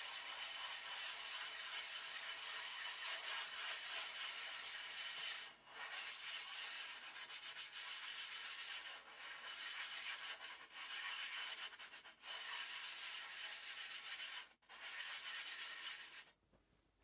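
Aluminium-oxide sharpening stone rubbed in strokes over loose coarse 150 silicon carbide powder and oil on a tempered glass plate: a continuous gritty grinding hiss as the stone's face is lapped flat. The rubbing breaks off briefly several times and stops shortly before the end.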